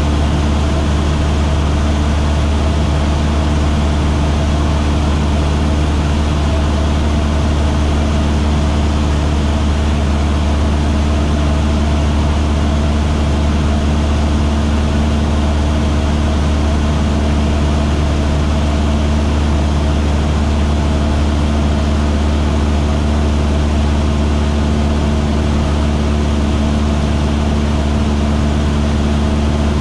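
Piston engine and propeller of a light single-engine airplane running at steady power in level flight: a constant low drone with a steady hum above it, no change in pitch or loudness.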